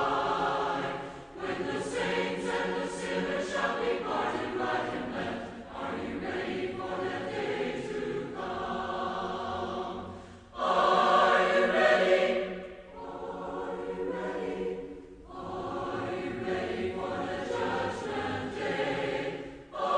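A choir singing a hymn line by line, with short breaks between phrases and one louder line about halfway through.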